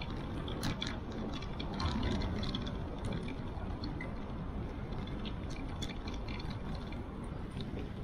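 Steady low rumble of wind and tyre noise from a bicycle rolling along an asphalt path, picked up by a bike-mounted action camera, with scattered light clicks and rattles throughout.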